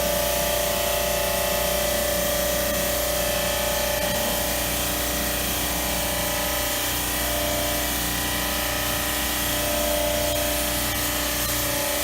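Air-conditioner cleaning pressure washer running steadily: a constant motor-pump tone under the hiss of its water spray.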